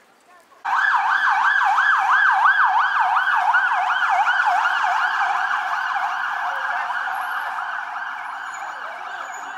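An electronic siren in a fast yelp, its pitch rising and falling about four times a second. It starts suddenly a little way in and slowly fades.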